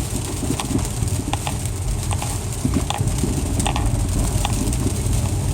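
Inside a car driving on snowy streets: a steady low rumble of engine and tyres, with light clicks and knocks scattered at uneven intervals.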